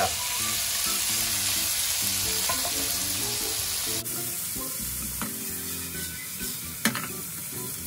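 Chopped tomatoes and garlic sizzling in hot oil in a pan as they are stir-fried, with a steady hiss that drops a little about four seconds in. A couple of sharp knocks of the utensil against the pan come near the end.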